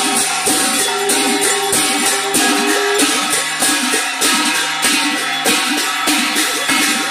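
Large brass hand cymbals clashed in a steady beat, about two strikes a second, over other instruments holding sustained tones.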